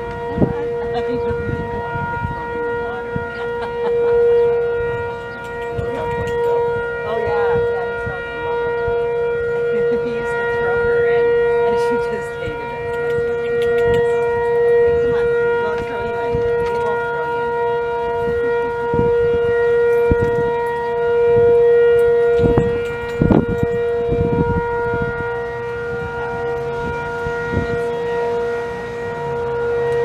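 Sentry 10V tornado siren sounding a steady tone at one pitch during a test, swelling and fading in loudness. A few brief thumps are heard as well.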